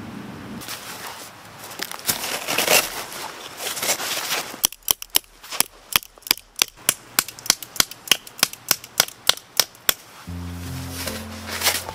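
An even series of sharp knocks, about four a second for some five seconds, after a rustling, crackling stretch; background music comes in near the end.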